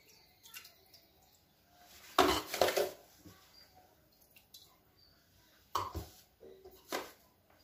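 Steel kitchen utensils clinking and knocking as salt is added to a pressure cooker of dal: a few short clatters, the loudest about two seconds in, with smaller knocks near the end.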